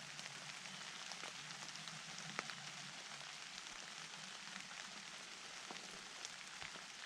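Light rain falling steadily: a soft hiss with scattered drops ticking.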